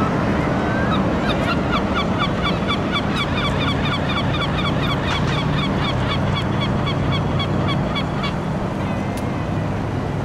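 Fire engine siren sounding a fast pulsing tone, about five pulses a second, over a steady low engine drone; the siren stops about eight seconds in.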